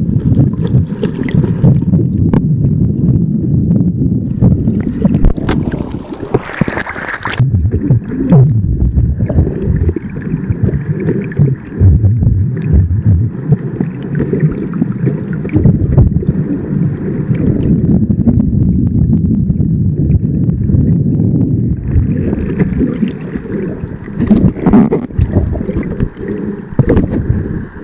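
Wind buffeting the microphone in a gusty, low rumble, mixed with the wash of water; a louder rush of water comes about six to seven seconds in.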